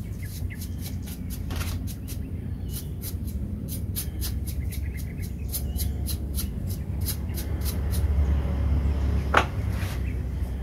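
A steady low rumble under a fast, even run of short high ticks, about four a second, through the middle. About nine seconds in comes a single sharp knock as a tool is set down on the wooden sawhorse.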